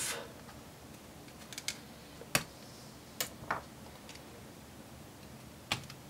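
Half a dozen light, separate clicks and taps as a plastic pry tool releases the clips of a laptop's metal memory shield and the shield is lifted off.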